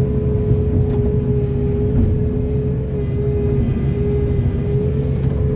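Heavy excavator's diesel engine running steadily under load, with a constant whine held above the engine rumble and brief rattles of material.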